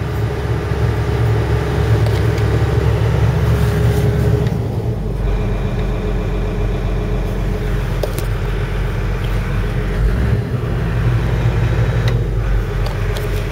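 John Deere excavator's diesel engine running steadily close by, its pitch settling lower about five seconds in.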